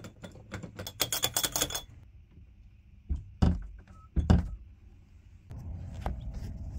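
Bathroom doorknob being jiggled and turned, a quick run of metal clicks and rattles from the knob and latch. A few dull thumps follow, then a steady low rumble takes over near the end.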